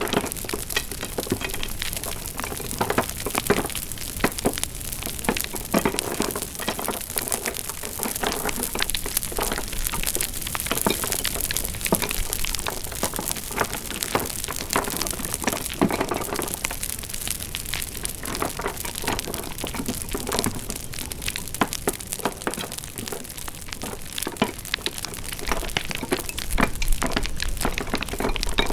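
Wood fire crackling: a dense, irregular run of pops and snaps over a soft hiss, with a few louder pops scattered through.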